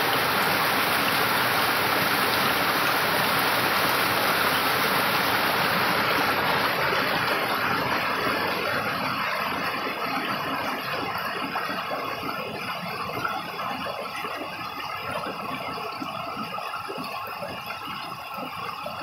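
A small mountain stream cascading in little falls over rocks, making a steady rush of water. It grows gradually quieter and less hissy from about a third of the way in.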